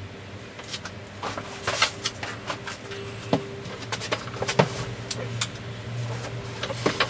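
Tools and clutter knocking and clattering as they are moved about in a search for a spanner: a string of short, sharp knocks at irregular intervals. A steady low hum runs underneath.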